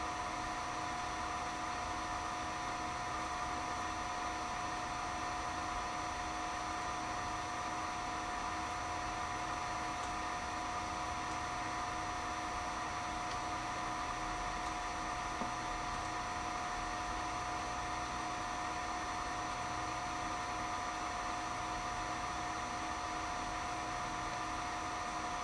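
Steady hum and hiss of running bench equipment, with several steady high whining tones and no change throughout.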